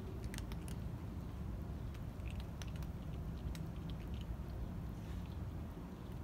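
A cat and kittens eating dry kibble: scattered small, sharp crunches, thickest in the first second and again around the middle, over a steady low rumble.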